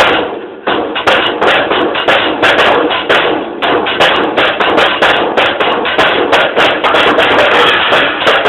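Drum kit played in a fast, continuous drum solo with dense, rapid strokes. It is recorded through a mobile phone's microphone, which gives it a thin, dull drum sound.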